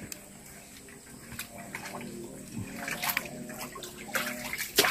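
Muddy water sloshing and splashing as a man gropes with his arms through the mud of a drained stream pool, feeling by hand for snakehead and catfish. The splashes come now and then, louder and closer together near the end.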